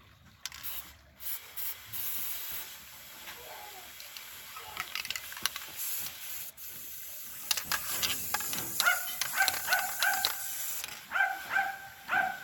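Aerosol spray paint hissing steadily as colour is sprayed onto the water of a hydro-dipping tub. A run of short ringing taps joins it in the second half.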